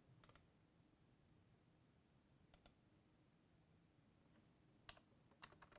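Near silence with a few faint computer mouse clicks, mostly in quick pairs: one pair about a quarter second in, another about two and a half seconds in, and a few more near the end.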